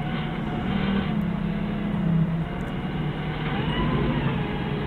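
Forklift engine running steadily as the machine drives and turns, its note lifting slightly for a moment about two seconds in before settling back.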